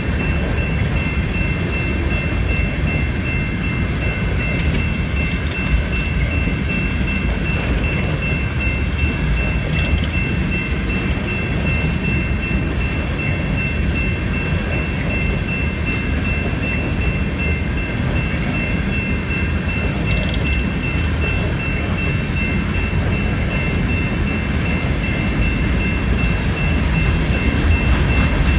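Freight train of open-top hopper cars rolling steadily through a grade crossing, a continuous rumble of wheels on rail. Thin, steady high-pitched ringing tones sit over the rumble throughout.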